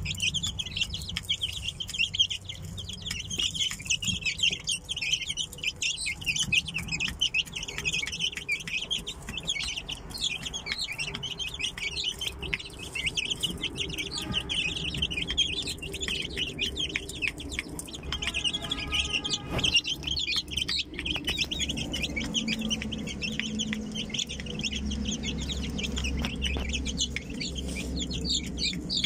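A brood of Aseel chicks peeping continuously in high-pitched, overlapping chirps, with a brief lower call from a hen about two-thirds of the way in.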